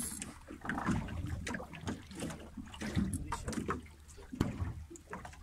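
Water lapping and splashing against the hull of a small fishing boat, with irregular knocks and a steady low wind rumble on the microphone.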